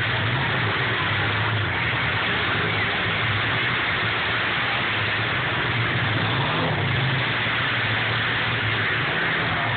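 Several demolition derby cars' engines running and revving together in a continuous drone whose pitch wavers as drivers accelerate and back off.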